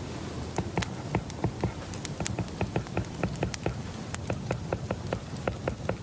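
Light, sharp taps and clicks in an irregular rhythm, about three to five a second, over a steady low background hum.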